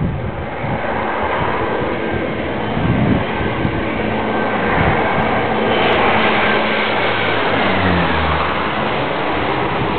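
Low-flying aircraft passing overhead, a loud steady engine noise whose tones drop in pitch as it goes by, about eight seconds in.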